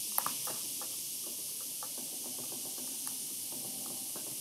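Steady background hiss with a few faint small clicks, the sharpest about a quarter second in and another about three seconds in, from wires and a plastic screw-terminal connector block being handled.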